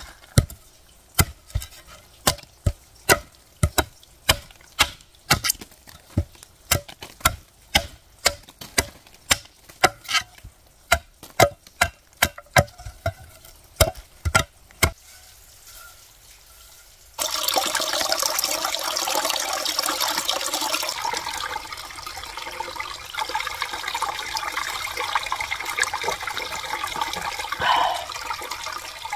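Wood being chopped with a blade, about two sharp strikes a second, which stop about 15 seconds in. About two seconds later a steady rush of water cuts in suddenly and runs on.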